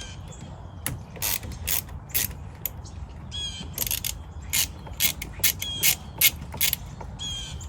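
1/4-inch drive ratchet clicking in short, uneven strokes, about a dozen clicks, as it loosens the nut on the jump box battery's ground terminal.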